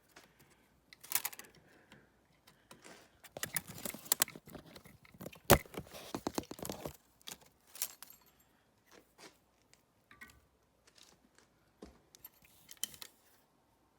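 Irregular metallic clinks, scrapes and rattles of engine parts and hand tools being handled while a dirt-bike engine's top end is taken apart, with one sharp knock about five and a half seconds in, the loudest sound.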